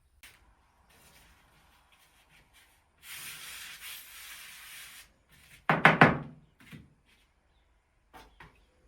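Kitchen handling sounds: a steady scraping rub for about two seconds, then a loud clatter of several quick knocks about six seconds in, and two faint knocks near the end.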